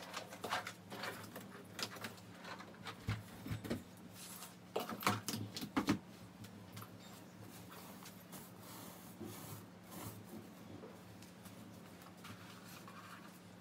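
Household objects being handled and set down: a string of small knocks and clatters in the first six seconds, then softer rustling of pillows and bedding, under a faint steady hum.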